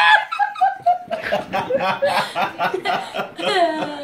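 A woman and a child laughing, a run of quick short laughs with a falling laugh near the end.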